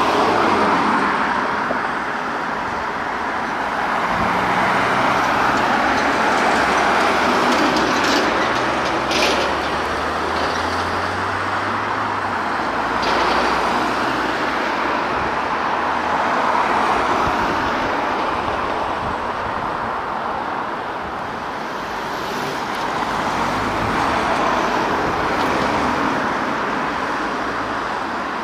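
A convoy of armoured police Land Rover (Tangi) patrol vehicles driving past one after another, engine and tyre noise swelling and fading as each goes by over a low engine rumble. A few brief sharp clicks come about eight, nine and thirteen seconds in.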